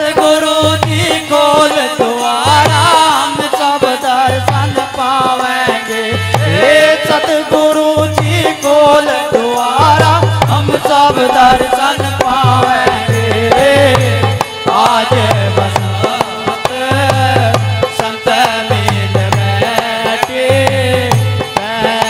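Men singing a devotional bhajan in Hindi into microphones, with folk hand percussion and a regular low drum beat.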